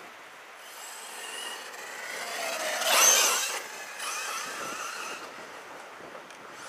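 Brushless electric RC truggy running on a 3S LiPo, its motor whining up and down in pitch as the tyres crunch over a gravel path; it passes close and is loudest about three seconds in, then fades as it drives away.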